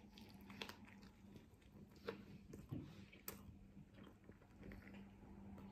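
Faint mouth sounds of a person biting into and chewing a soft chicken shawarma wrap, with a few soft clicks and smacks scattered through the chewing.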